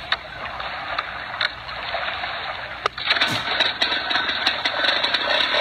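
Small engine of a homemade mini airboat being pull-started: a hard rope pull about three seconds in, among clicks and clatter, over a steady rushing hiss.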